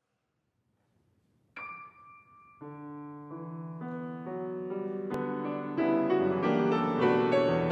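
Steinway grand piano playing alone: a single high note about a second and a half in, then chords entering a second later and growing steadily louder. A brief click sounds near the middle.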